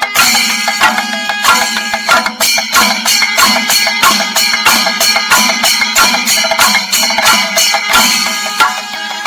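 Singari melam percussion ensemble: chenda drums struck in fast, dense rolls, with ilathalam cymbals ringing over them.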